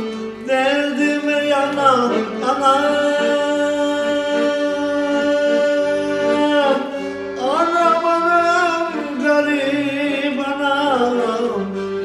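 A man singing a slow traditional folk song over a piano accordion, which holds steady chords beneath the voice. A few seconds in he holds one long note for about four seconds before gliding into the next phrase.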